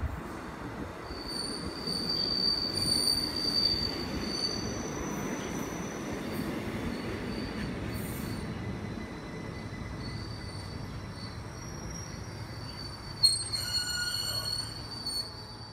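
Rhaetian Railway electric multiple unit pulling slowly into the platform and rolling past: a steady rumble with a high wheel squeal in the first few seconds, then a sharp clank and more squealing near the end as it slows.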